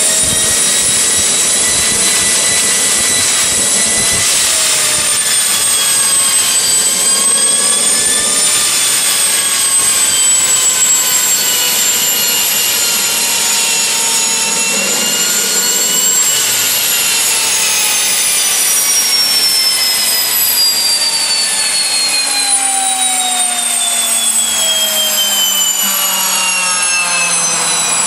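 AiResearch Garrett GTP70-9 turboshaft engine running with a loud, high turbine whine that wavers up and down in pitch. About two-thirds of the way in, the whine begins falling steadily in pitch as the turbine spins down.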